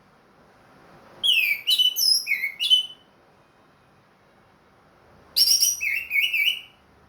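Orange-headed thrush singing two short phrases of quick, clear whistled notes that slide downward in pitch, each phrase about a second and a half long, a few seconds apart. It is a captive bird in full song again after finishing its molt.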